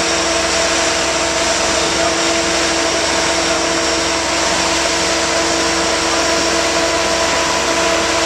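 Marine travel lift's engine and hydraulics running steadily while it holds a boat in its slings: an even mechanical drone with a few constant whining tones.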